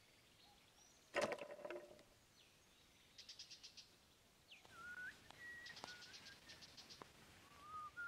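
Plastic basket trap dropping shut with one loud knock and a brief rattle about a second in. Bird calls follow: a quick run of trilled chirps, then several short whistled notes.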